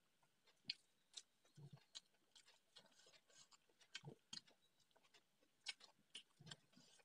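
Faint, sporadic wet chewing and mouth clicks of someone eating with the fingers, with a few soft low thumps.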